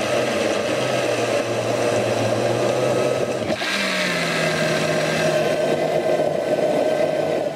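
Countertop blender motor running steadily, churning a thick mix of leaves, fruit and milk. About halfway through, its pitch jumps up and then slowly settles lower.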